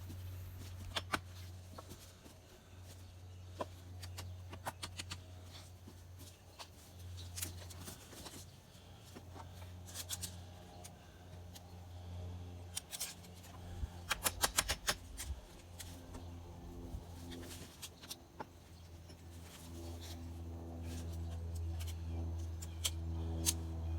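Scattered sharp taps and knocks, bunched in a quick flurry about halfway through, over a low steady hum.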